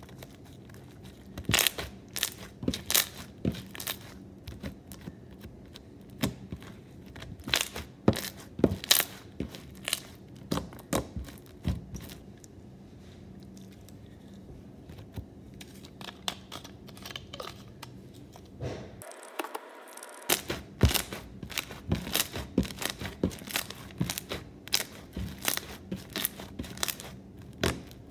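Thick bingsu slime full of small plastic beads and foam beads being squeezed and kneaded by hand, giving irregular crunchy crackles and pops in quick clusters.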